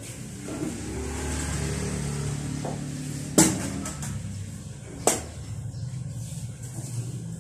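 Motor scooter engine running steadily indoors, with two sharp knocks about three and a half and five seconds in.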